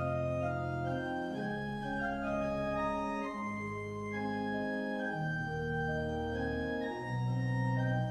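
Church organ playing slow, sustained chords over a low bass line, the chords changing every second or two.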